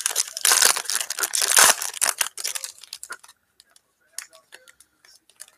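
Foil wrapper of a 2019 Topps Tier One baseball card pack being torn open and crinkled in the hands. The crackling is dense for about the first two seconds, thins to scattered crackles until about three seconds in, then leaves only a few faint clicks.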